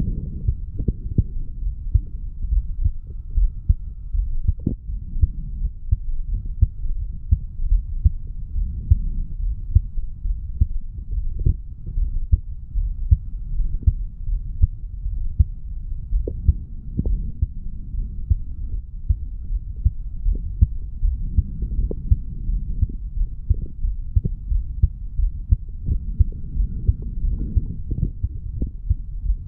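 A man's heartbeat recorded at the chest over the mitral valve area, after a weight-training session: a continuous run of low, muffled thumps.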